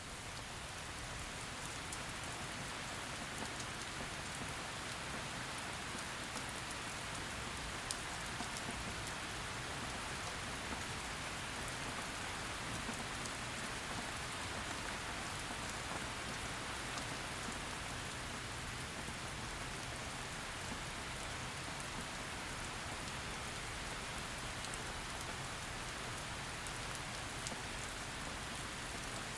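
Heavy rain falling steadily, a continuous hiss with scattered drops pattering on a surface.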